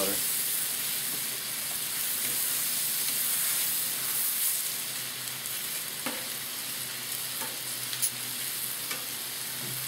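Butter sizzling on a hot Blackstone flat-top griddle as a metal spatula spreads it around, a steady frying hiss with a few faint clicks of the spatula on the steel.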